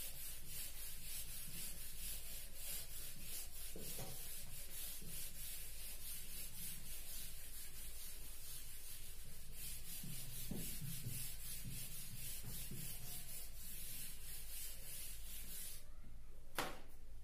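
Whiteboard duster rubbing over a whiteboard, wiping off marker writing in quick, even back-and-forth strokes; the rubbing stops near the end and is followed by a single short knock.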